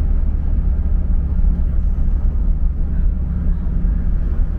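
Steady low rumble of a car's engine and tyres on the road, heard from inside the cabin while driving at a constant pace.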